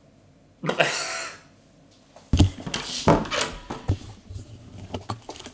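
A short breathy sound, then a run of sharp knocks and clatter from about two seconds in, as of objects being handled and set down.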